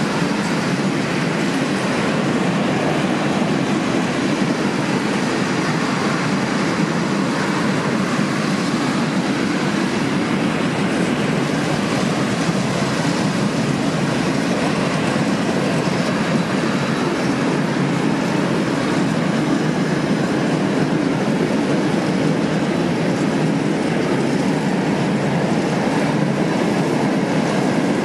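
Freight train of open-top wagons rolling past close by: a loud, steady noise of wheels running on the rails.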